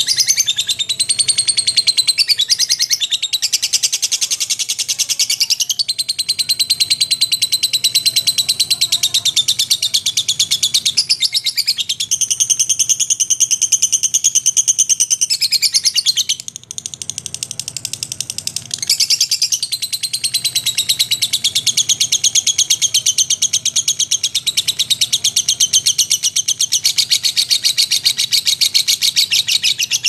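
Lovebird singing its 'ngekek': a long, rapid, high-pitched chattering trill that runs on almost without a break, with a softer stretch of about two seconds past the middle.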